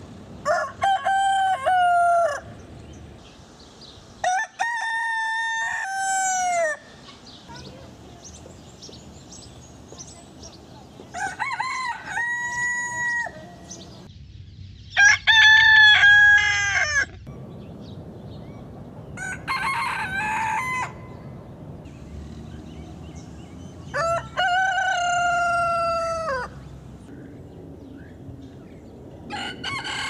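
Roosters crowing: six separate cock-a-doodle-doo crows a few seconds apart, each about two seconds long, in differing pitches, with another crow beginning near the end.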